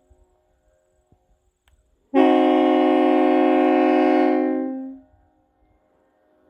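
Nathan AirChime K3LL three-chime train horn, air-powered through a solenoid valve, sounding one blast of about three seconds: a chord of several notes that starts abruptly about two seconds in and tails off, heard from about 100 m away.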